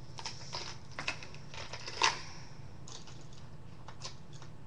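Fishing lures being handled and rummaged through in a tackle box: scattered light clicks and rattles, the loudest about two seconds in.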